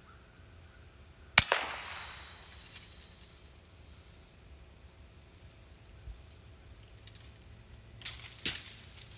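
FX Impact M3 Compact .22 PCP air rifle firing a single shot, a sharp crack about a second and a half in, followed by a couple of seconds of fading rustle. Two lighter clicks come near the end.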